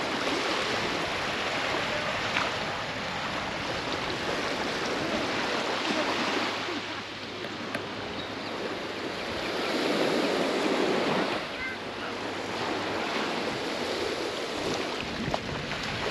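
Small waves breaking and washing up on a sandy shore in a steady rush, swelling louder about ten seconds in.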